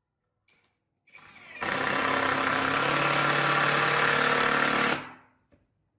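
Electric power tool running for about three and a half seconds: it spins up about a second in, runs steadily, then winds down near the end.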